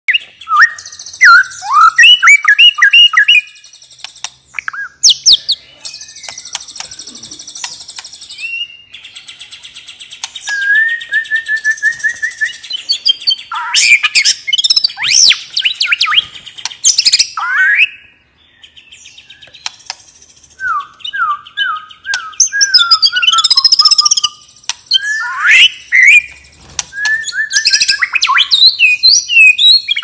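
White-rumped shama (murai batu) singing a loud, full song (ngeplong): a long run of varied phrases mixing clear whistles, quick repeated notes and harsh buzzy phrases, broken by short pauses.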